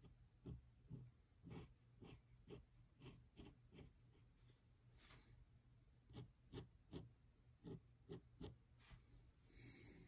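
Steel dip-pen nib scratching and tapping on paper in short, quick strokes, roughly two a second with a brief pause midway, faint. A longer, hissier stroke comes near the end.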